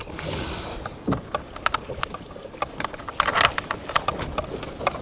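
Oar Board rower seat being pushed onto its base and handled: scattered small clicks and knocks of the parts, with a denser rattle of clicks about three seconds in.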